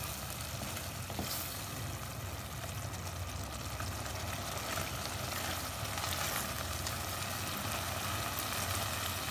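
Chicken and tomato–yogurt gravy, with cream just stirred in, sizzling steadily in a pot while a slotted spatula stirs it and scrapes the pot now and then.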